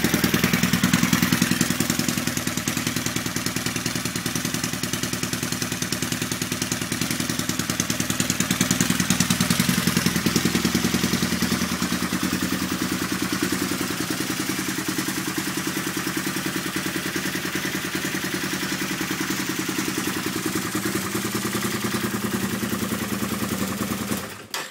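Can-Am ATV's 1004 cc V-twin engine with big Gen 2 cams, idling steadily. Tune Monster programming smooths the idle so it sounds basically like a stock engine. The sound stops suddenly near the end.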